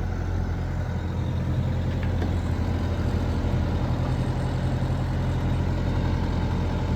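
Sailboat's inboard diesel engine running steadily under way with a low, even hum, motoring the boat in after the wind died.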